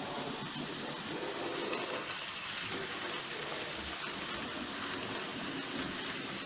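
N gauge model train running past on the track: a steady rattling hiss of small wheels on the rails and the locomotive's motor.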